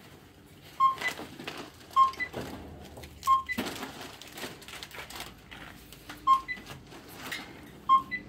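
Supermarket checkout scanner beeping five times at irregular intervals as items are scanned, each short beep followed a moment later by a brief higher-pitched tone. Rustling and knocks of goods being handled in between.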